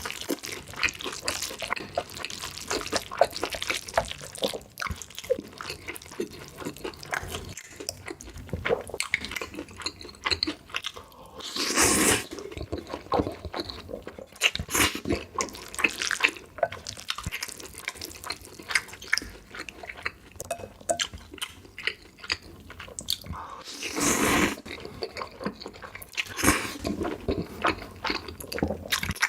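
Close-miked eating sounds: wet chewing and smacking with many small clicks, and two longer, louder bursts, about twelve and twenty-four seconds in.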